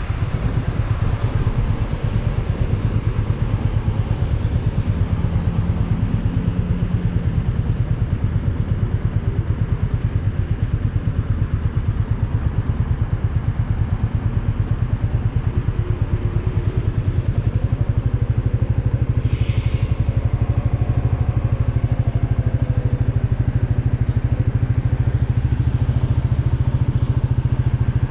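Royal Enfield Meteor 350's single-cylinder engine idling with a steady, rapid thump. A short hiss about two-thirds of the way through.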